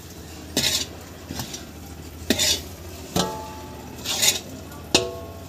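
A long-handled metal ladle scraping and stirring desiccated coconut roasting in ghee in a large iron kadhai: three long scraping sweeps, with two short ringing metal knocks against the pan between them.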